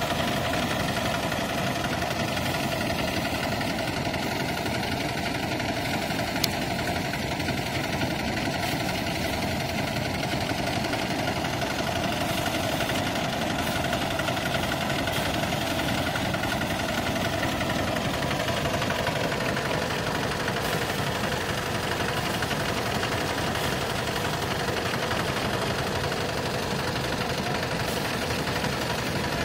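Small engine-powered paddy thresher running steadily: the engine's drone mixed with the rattle of the spinning drum as rice bundles are held against it and the grain is stripped off. One sharp click about six seconds in.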